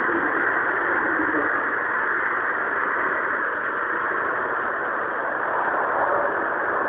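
Tow truck's engine running steadily, an even mechanical noise with no change in pitch or level.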